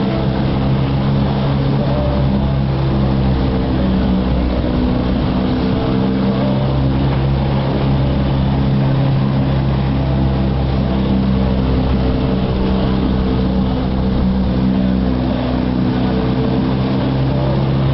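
A Catalina 22's outboard motor running at a steady speed, a constant even drone with no change in pitch.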